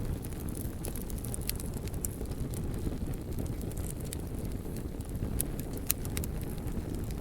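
Fire burning with a steady low rumble and scattered sharp crackles and pops, the loudest pop about six seconds in.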